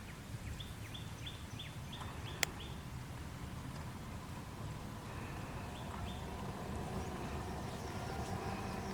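A bird calling in a quick run of about seven short, down-slurred chirps, about three a second, then a few more chirps a little later, over a steady low background rumble. A single sharp click comes about two and a half seconds in.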